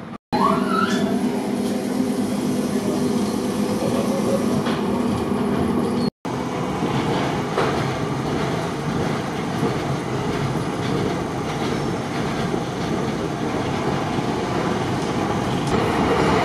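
Running noise inside a Düwag tram car: a steady rumble of wheels on rails with a motor hum, and a short rising whine about half a second in. The sound cuts out abruptly twice, near the start and about six seconds in.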